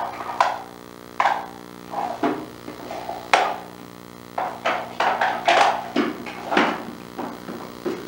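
Indian ringneck parakeet giving short squawks and chattering calls in quick, irregular bursts, some sharp and dropping in pitch.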